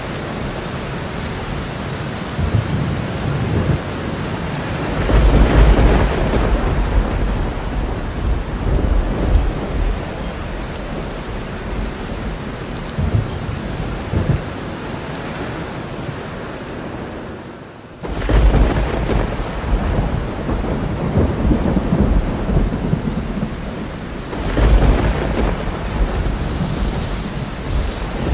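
Thunderstorm: steady rain hissing throughout, with rolling thunder rumbling three times: about five seconds in, again about two-thirds of the way through, and once more near the end. Just before the second rumble the sound briefly fades, then cuts back in abruptly.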